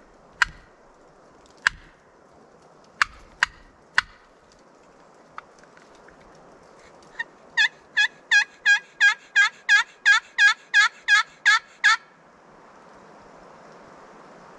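Turkey calling: a few sharp single clucks, then about seven seconds in a steady run of about fourteen loud yelps, roughly three a second, lasting about five seconds.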